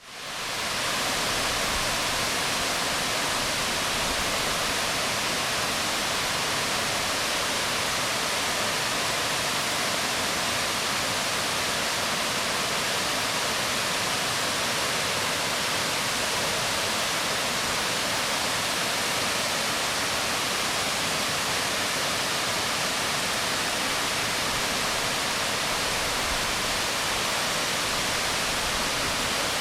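Waterfall pouring onto rocks: a steady, even rush of falling water that fades in over the first second and then holds constant.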